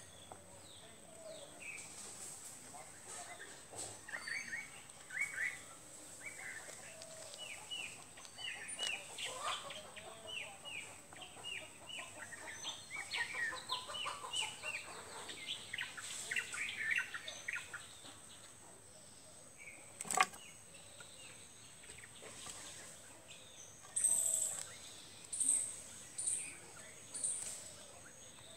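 Small birds chirping in quick, short repeated notes. There is one sharp click about twenty seconds in, and a few louder, higher calls near the end.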